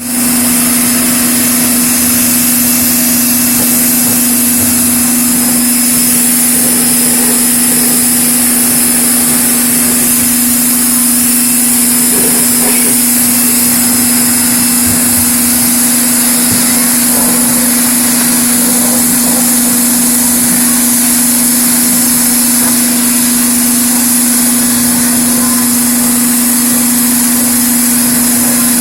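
Pressure washer running without a break, a steady motor hum under a high hiss from the spray.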